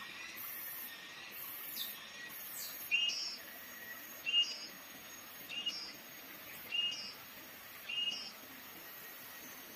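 A bird gives a short chirped call five times, about once a second, over a faint steady outdoor hiss, after a couple of quick falling whistles. A high pulsing insect buzz sounds in the first half.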